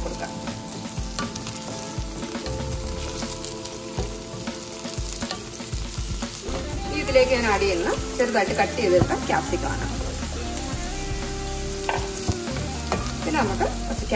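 Chopped onion, carrot, green beans and capsicum sizzling in hot oil in a stainless steel pan while a wooden spatula stirs them, with frequent short knocks and scrapes of the spatula against the pan.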